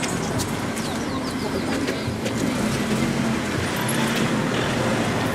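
Outdoor road ambience: a motor vehicle's engine running, with a bird chirping a quick series of short falling notes about a second in.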